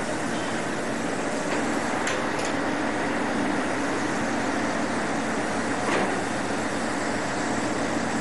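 Steady drone of a boat's engine under a continuous rushing noise, with a few faint clicks.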